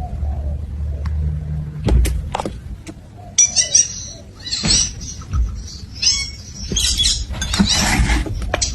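Quick high-pitched animal chirps and squeaks, starting about three and a half seconds in and running on densely. Before them there is a low steady hum with a few sharp knocks.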